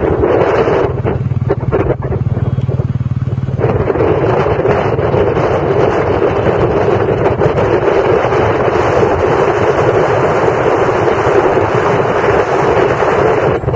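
Motorcycle riding at road speed heard from the pillion seat, with heavy wind buffeting on the microphone over the engine running. A steady low engine note is clearest in the first few seconds before the wind noise covers it.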